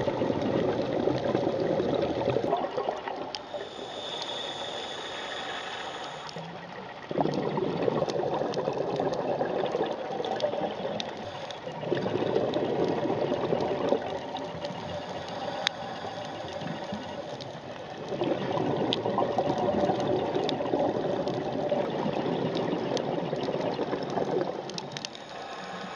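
Scuba diver breathing underwater through a regulator: long rumbling bursts of exhaled bubbles lasting several seconds, alternating with quieter stretches of inhale hiss, about three breaths, with scattered sharp clicks.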